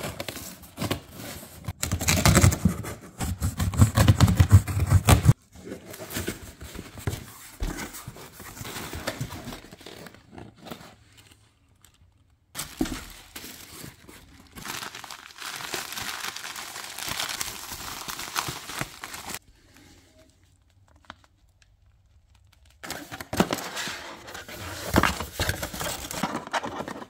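Packing tape on a cardboard box being slit with a knife and torn open, loudest about two to five seconds in. Then plastic air-pillow packing crinkles and rustles as hands dig through it, with a quiet pause before more handling near the end.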